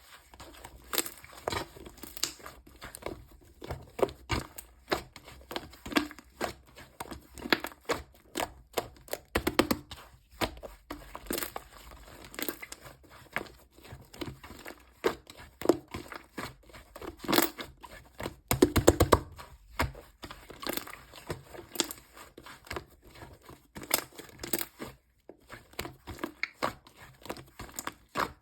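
Pink whipped-cream clay slime being squished and stretched by hand, making irregular sticky crackles and pops.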